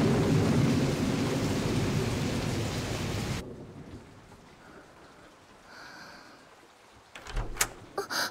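Heavy rain with thunder rumbling, slowly fading and then cutting off about three and a half seconds in. After a quiet stretch come a few sharp knocks near the end.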